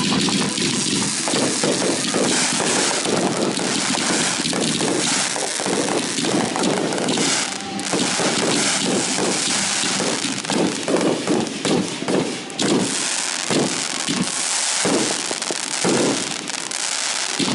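Fireworks going off in a dense, continuous run of crackles and bangs.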